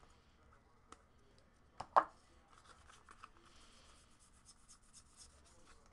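Baseball cards being flipped through by hand, sliding and rubbing against each other with soft scratchy ticks, and one sharper tap about two seconds in.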